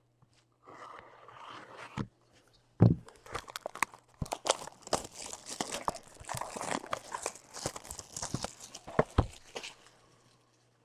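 Plastic shrink wrap being torn off a box of trading cards, crinkling and crackling, with a thump just under three seconds in.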